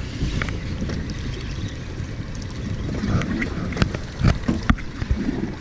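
Steady low rumble of wind and water around a small open fishing boat, with a few sharp knocks about four seconds in.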